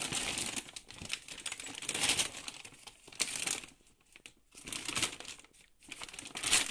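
Plastic dog food bags crinkling and rustling as they are grabbed and shifted by hand, in irregular bursts with brief pauses between them.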